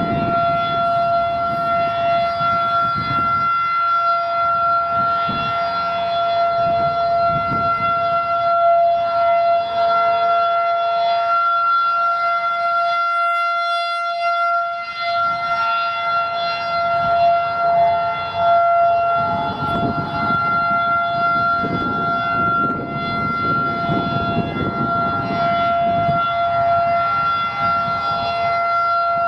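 Federal Signal 2001-SRN outdoor warning siren sounding the Alert signal: one loud, steady tone held at a constant pitch, swelling and fading gently as the rotating siren head turns.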